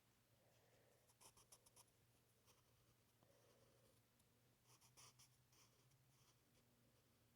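Faint scratching of drawing strokes, in two quick clusters of short strokes, over a low steady hum.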